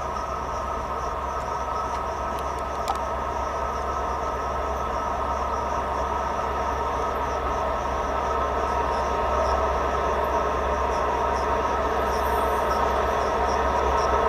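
HŽ series 2062 EMD diesel-electric locomotive running and drawing nearer at the head of a freight train, its engine growing steadily louder. Crickets chirp in a steady rhythm behind it.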